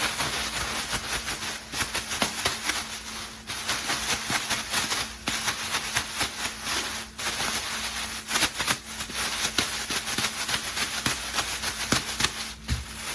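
Chicken wings being shaken in a bag of seasoned flour fry mix to coat them: a fast, continuous rustling rattle, broken by brief pauses a few times.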